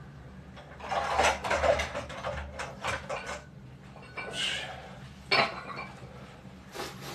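Dishes and cutlery clinking and clattering as they are handled: a quick run of clinks in the first few seconds, then a scrape and two separate sharp knocks.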